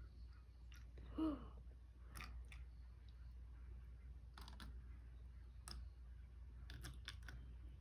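Faint, scattered clicks and light taps of thin plastic cups being handled while bleach is poured slowly from one cup into another. A short murmur from a voice about a second in is the loudest sound.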